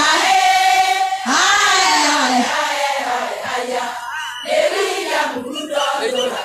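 A large group of women singing together in chorus, a Kikuyu song sung in unison with held notes that rise and fall.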